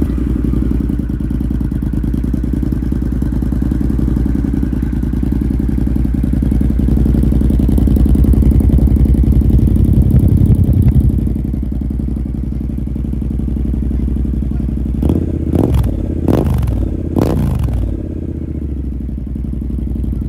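Triumph Scrambler 1200 XC's 1200 cc parallel-twin engine running through a TEC exhaust with its baffle removed, just after starting. It runs at a fast idle that drops lower about 11 seconds in, then three quick throttle blips rise and fall near the end.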